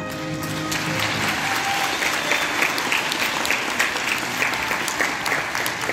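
Audience applauding, the clapping swelling as a piece of music ends about a second in.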